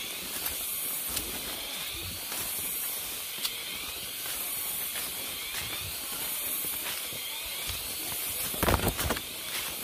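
Steady high-pitched hissing drone of a forest insect chorus. A brief loud bump comes near the end.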